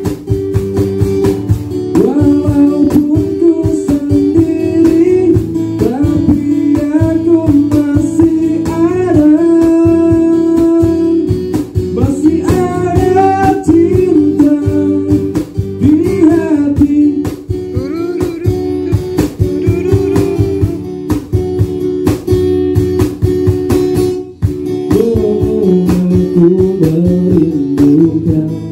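Small acoustic band playing: an acoustic guitar strummed over a steady cajon beat, with a voice carrying a melody over it for most of the stretch.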